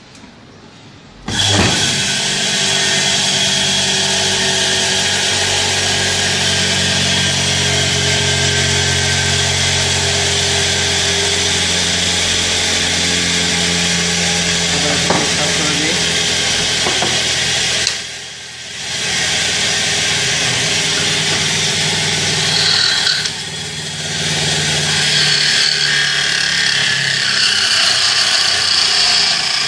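A single-phase induction motor, fed from a three-phase 408 V line through a contactor, is switched on about a second in and runs with a loud, steady hum and whir. Near the middle the sound drops out for about a second, then the motor runs again, dipping briefly once more before carrying on to the end.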